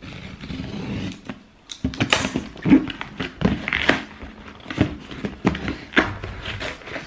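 Cardboard shoebox and its packaging being handled and pulled open: rustling, scraping and a string of sharp knocks and taps.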